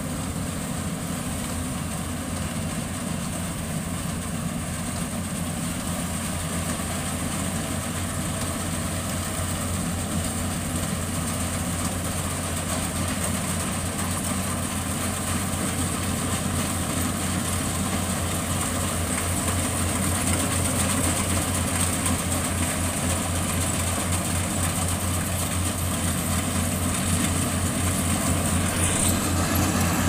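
Yanmar combine harvester's diesel engine running steadily under load as it cuts and threshes rice, growing a little louder toward the end.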